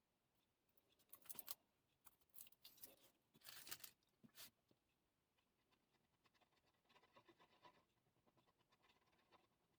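Faint scratching and rubbing of small hand work at the bench, in a few short bursts in the first half, then softer crackling a few seconds later.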